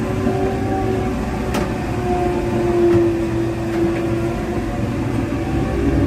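Scania K400IB coach's rear-mounted inline-six diesel engine running under way, heard from inside the coach. It is a steady drone with a faint whine that wavers slightly in pitch, and a single brief click about a second and a half in.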